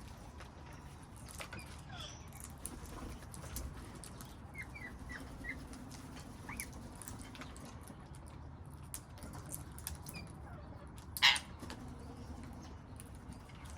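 Wild parrots in a garden: a few short, quiet chirps and scattered light clicks and patters, with one sharp, loud sound about eleven seconds in, over a low steady background.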